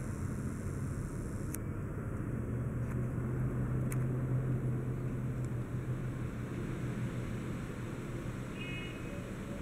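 Diesel engine of a loaded Tatra dump truck running steadily as it creeps forward, a low hum that swells slightly a few seconds in and eases off again.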